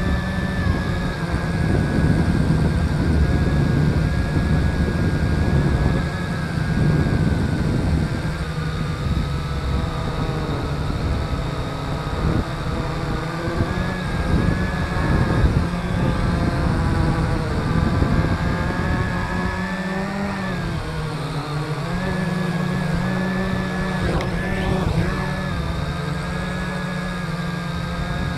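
MJX quadcopter's motors and propellers whining, heard close up from the camera on the airframe. The pitch rises and falls as the throttle changes, over a low rumble.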